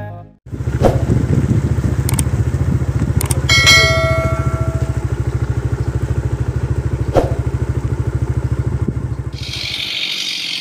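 Pickup truck engine running with a steady low, fast-pulsing rumble, with a few sharp knocks and a brief high tone about four seconds in. Near the end it gives way to a chainsaw cutting wood.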